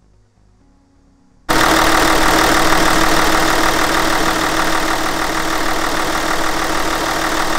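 Hyundai Veracruz's V6 CRDi diesel engine idling steadily with a diesel clatter. It cuts in abruptly about a second and a half in.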